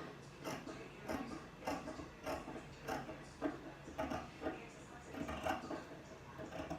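Scissors cutting through light fabric: a steady run of snips, about one every half second.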